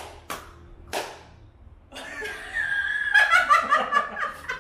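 Two sharp smacks near the start, then several people break into laughter about halfway through, loud, in quick pulses.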